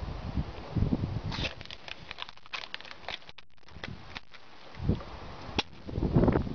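Teeth biting and gnawing into the top of an aluminium beer can to open it: a quick run of small crackling clicks from the metal, then one sharp click near the end. Low bumps of handling and wind on the microphone at the start and end.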